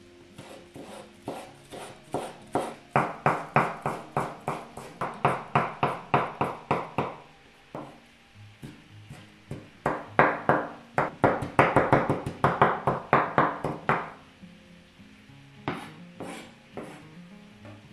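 Chef's knife chopping green onion on a wooden cutting board, sharp knocks about four a second in two long runs with a pause between them and a few last strokes near the end. Soft acoustic guitar music plays underneath.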